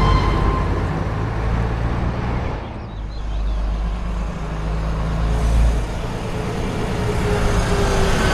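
Diesel engine of a classic bus running with a deep, steady rumble. It drops away briefly about three seconds in, and a slowly falling tone comes in near the end.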